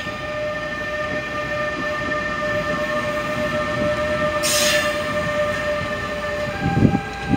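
NJ Transit ALP-46 electric locomotive passing close by, a steady whine of several tones over wheel and rail rumble. A brief hiss comes about four and a half seconds in. Near the end the whine shifts pitch and a few thumps follow.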